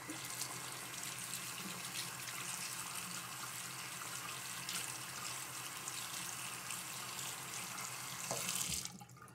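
Bathroom faucet running, its stream splashing onto a shaving brush held in it and into the sink basin below as the brush is soaked; the water stops near the end.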